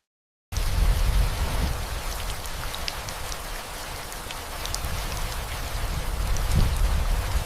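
Steady rain falling, with scattered individual drops ticking; it starts abruptly about half a second in.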